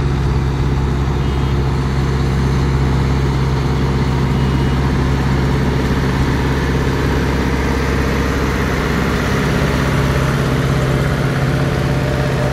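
Engine of heavy road-paving machinery running steadily, a low, even drone with no change in speed.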